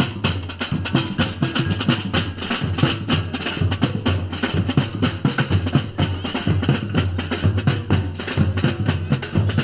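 Batucada percussion ensemble playing a dense samba rhythm: bass drums underneath, with many sharp wooden and metallic strikes on top.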